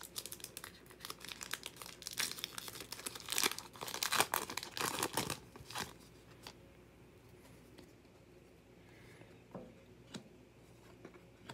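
Trading-card pack wrapper being torn and crinkled for about six seconds, a dense crackle of sharp ticks, then quieter card handling with a few light clicks.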